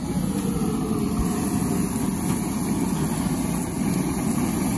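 Gas grill burners running: a steady, low rushing noise.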